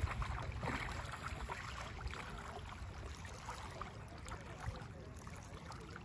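Faint lakeside background: a steady low rumble of wind on the microphone with light water sounds and scattered small ticks.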